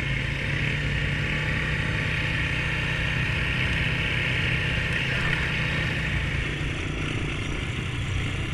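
Honda ATV engine running steadily while riding, with wind and tyre noise on the camera microphone.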